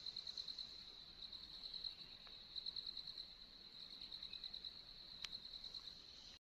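Insects chirring in a steady, fast-pulsing high-pitched trill, faint, which cuts off suddenly near the end.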